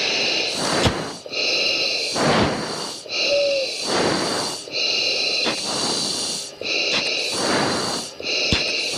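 Heavy breathing through a fighter pilot's oxygen mask over the hot-mic intercom, a breath about every one and a half to two seconds over the steady hiss of the cockpit. A brief squeak sounds about three seconds in.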